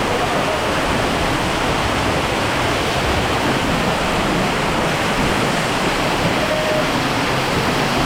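Loud, steady rush of falling water from a cave waterfall, an even noise with no breaks.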